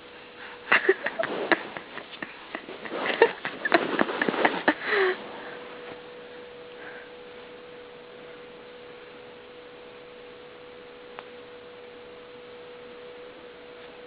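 A baby's weird noises, short breathy sniffs and grunts, for about the first five seconds, then they stop and only a faint steady hum remains.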